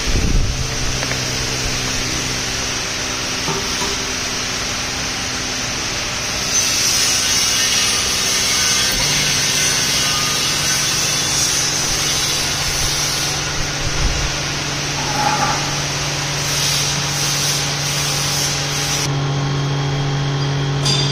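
Chamber vacuum packing machine's vacuum pump running steadily, a hum over a rushing hiss, as it draws the air out of the closed chamber; the hum grows stronger about nine seconds in and again near the end. A thump comes right at the start.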